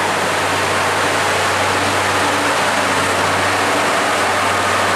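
Ship's engine-room diesel machinery running: a loud, steady wash of mechanical noise with a constant low hum underneath.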